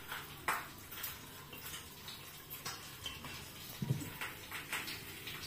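Recording device being handled and repositioned: scattered light clicks and knocks, with a dull thump about four seconds in.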